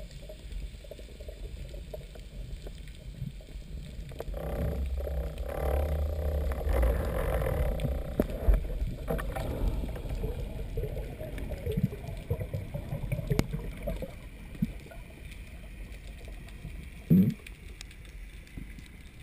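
Muffled water noise picked up by a GoPro in its waterproof housing during spearfishing: a low rumble with churning that swells for a few seconds, scattered clicks and knocks, and one short loud thump near the end.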